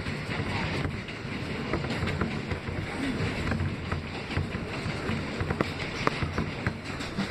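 R160B subway car running at speed, heard from inside the car: a steady rumble of wheels on rail with sharp clicks every so often.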